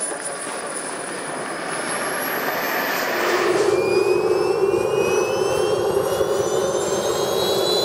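Model jet turbines running. About three seconds in the sound switches to the turbines of a large-scale RC Su-30 jet, louder, with a high whine that climbs steadily in pitch.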